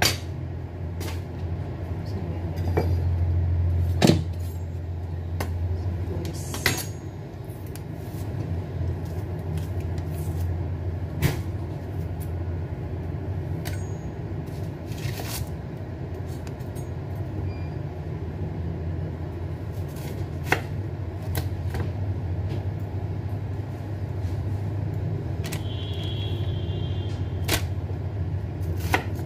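Kitchen knife slicing a red onion on a wooden cutting board: irregular knocks of the blade meeting the board, over a steady low hum.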